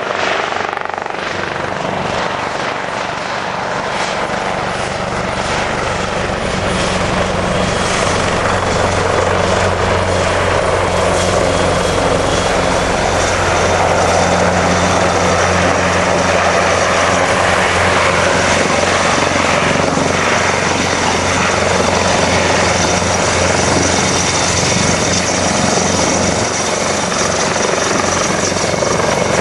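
Helicopter in flight, its turbine and rotor running loud and steady, growing louder over the first several seconds.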